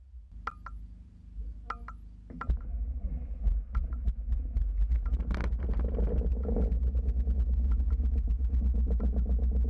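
A Piper PA28-180's Lycoming four-cylinder engine is started and settles into a steady idle, with propeller wash rumbling on the microphone. A few sharp clicks come in the first two seconds, before the rumble builds from about two and a half seconds in.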